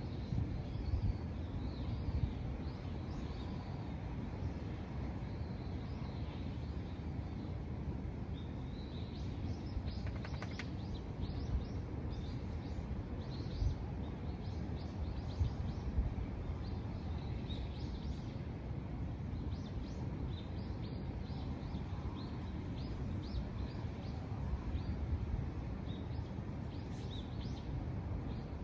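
Small birds chirping, many short high calls, over a steady low rushing outdoor noise.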